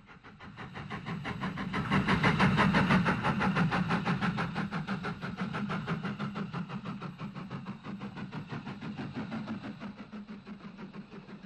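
GNR VS Class three-cylinder 4-4-0 steam locomotive passing at speed with its train, a rapid even beat over a steady rumble. It swells quickly to its loudest about two seconds in, then fades slowly as the train draws away.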